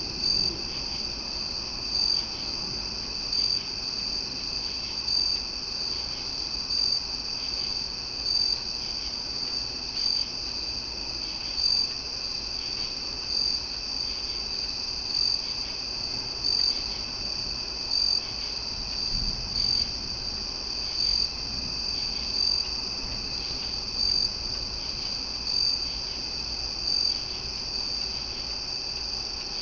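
Loud chorus of crickets at night: a steady high-pitched trill with a louder chirp repeating about every second and a half.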